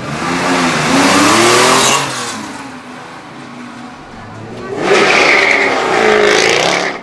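Classic Porsche 911 Targa's air-cooled flat-six revving as it pulls away, the pitch rising for about two seconds. About five seconds in, a Jaguar F-Type coupe accelerates past with its revs climbing again.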